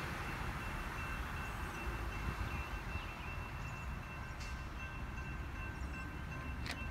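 Low rumble of an approaching Amtrak train led by GE P42DC diesel locomotives, still some way off, with a crossing signal bell ringing steadily over it. A few sharp clicks come near the end.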